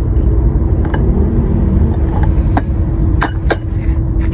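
Boiled balut duck eggshells being cracked and tapped against a ceramic plate: about five sharp, separate clicks, over a steady low rumble and a faint hum.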